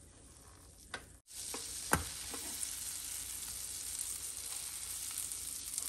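Butter sizzling in a small electric frying pan set on its fry setting: a steady hiss with small crackles that comes up about a second in, after a quieter start. A single knock sounds about two seconds in.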